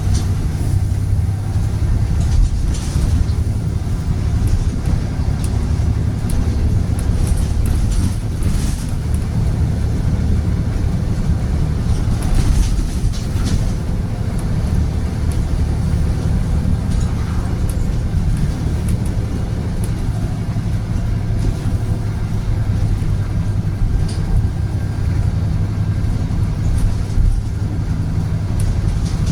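Volvo B7RLE bus with a Voith automatic gearbox running steadily, its diesel engine a continuous low drone. A few brief clicks or knocks stand out about 3, 8 and 12 seconds in.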